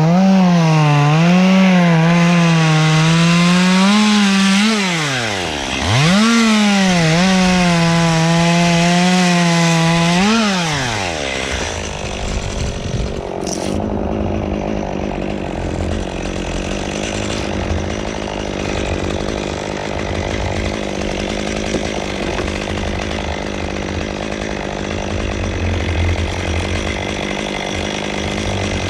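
Chainsaw at high revs cutting wood, its pitch wavering under load. The throttle eases off briefly about five seconds in and is let off about eleven seconds in. After that, a lower, steadier machine rumble carries on.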